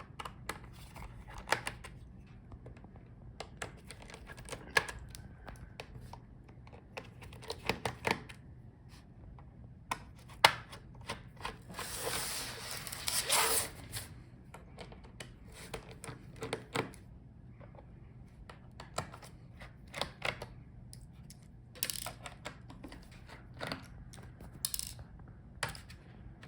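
Scattered small clicks and taps of a screwdriver undoing the screws on a laptop's plastic bottom case. About halfway through, there are roughly two seconds of louder scraping and rustling.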